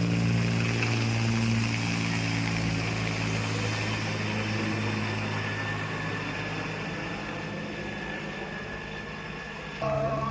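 Helicopter running with a steady drone that slowly grows fainter; music starts abruptly near the end.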